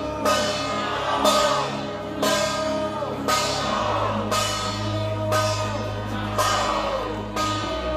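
Music with a steady drum beat, a hit about once a second with cymbal-like splashes, over held bass notes that change about halfway through.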